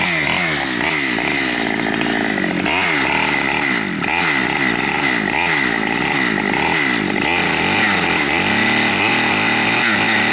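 Small Stihl 009 two-stroke chainsaw ripping lengthwise through a log, running continuously, its engine pitch repeatedly dipping and rising as the chain loads up in the cut.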